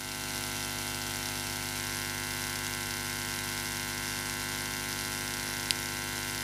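Steady electrical mains hum and hiss from a live-music sound rig left switched on, with one sharp click near the end.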